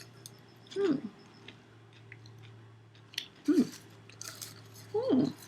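Microwave popcorn being chewed and crunched, with small crisp crackles and a few short voiced 'mm'-like sounds about a second apart, over a low steady hum.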